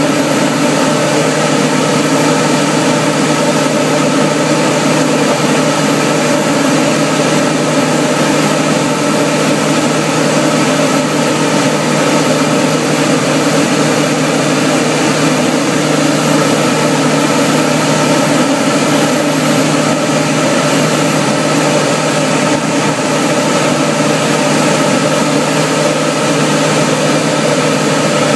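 Single-engine propeller aircraft's engine and propeller running steadily in flight, heard from inside the cockpit: a continuous, unchanging loud drone.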